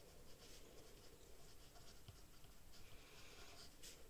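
Faint scratching of a pen writing on paper, in short irregular strokes.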